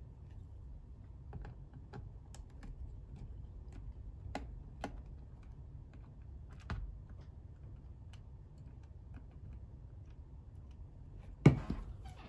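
Scattered small clicks and ticks of a multitool screwdriver working screws out of a laptop's plastic bottom case. About a second before the end comes a louder knock as the metal multitool is set down on the table.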